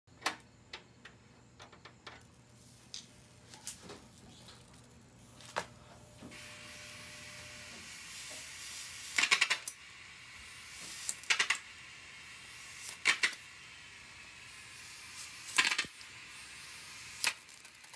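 High-voltage arcing from a gutted CRT television's high-voltage lead. It goes off in clusters of sharp crackling snaps roughly every two seconds from about nine seconds in, over a steady hiss that starts about six seconds in. Lighter scattered clicks come before that.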